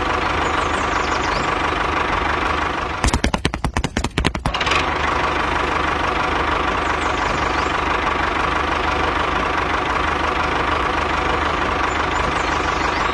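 A small motor running steadily, stuttering in a quick run of stops and starts from about three to nearly five seconds in before running steadily again.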